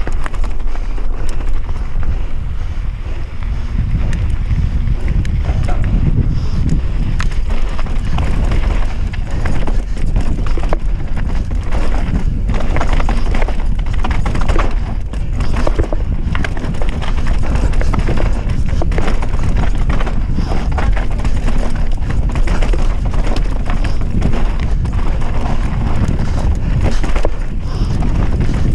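Enduro mountain bike riding fast down a dry, rocky dirt trail: heavy wind rumble on the camera's microphone, with the tyres rolling over loose dirt and stones and a constant run of knocks and rattles from the bike.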